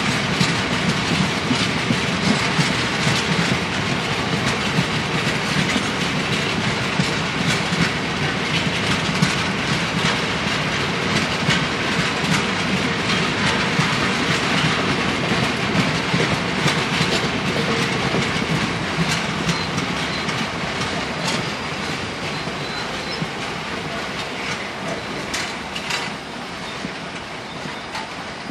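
Freight train of bulk powder tank wagons rolling past, the wheels clattering over the rail joints in a steady run of clicks, with faint thin wheel squeals in the later part. The rolling noise eases off over the last few seconds.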